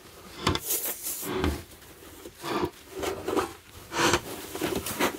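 A screwdriver tip and a paper towel scraping and rubbing dirt out of a groove in a plastic washing-machine control panel: an irregular series of short scraping strokes.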